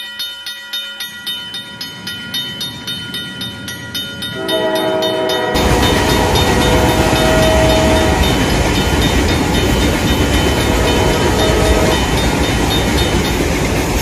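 Level-crossing bell ringing rapidly, about four strikes a second. About four seconds in, a train horn sounds, then a passing train's loud rumble and rail clatter takes over, with the horn blowing again twice.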